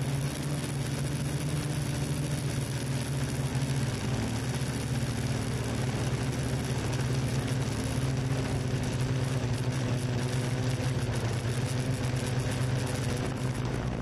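Quadcopter drone's electric motors and propellers humming steadily in flight, the pitch shifting slightly as it manoeuvres.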